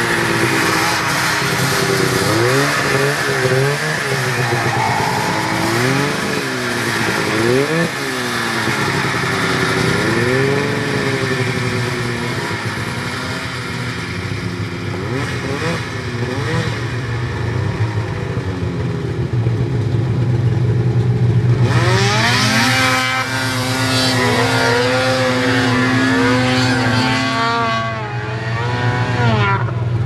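Snowmobile engines revving up and down as the sleds climb a snow hill, over the steady hum of a snowmobile idling close by. A louder, higher-pitched rev runs from about two-thirds of the way through until near the end.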